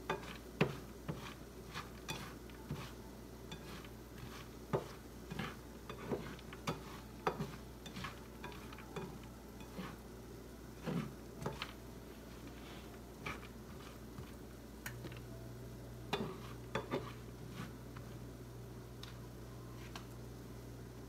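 A spatula stirring Cheerios in a non-stick frying pan: irregular scraping, clicks and knocks of the spatula and cereal against the pan, fewer near the end.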